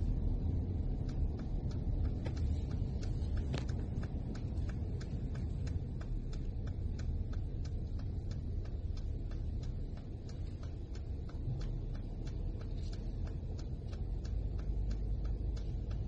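Steady low rumble of a car's engine and tyres heard from inside the cabin while driving slowly in traffic, with a light, regular ticking about twice a second.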